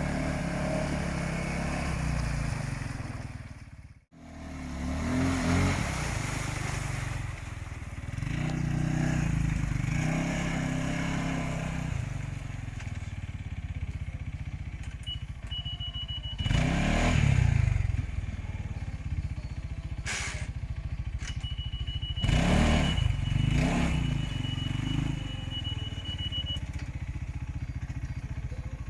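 UTV engine running, with the revs rising and falling and louder surges in the second half, as the machine is driven in the shallow water. The sound cuts out briefly about four seconds in.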